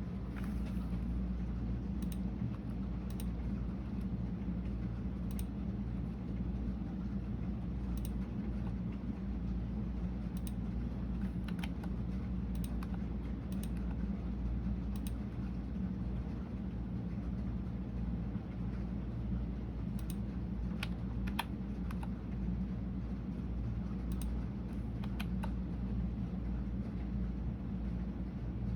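Computer keyboard typing: scattered, irregular keystroke clicks, sometimes in short clusters, over a steady low background rumble.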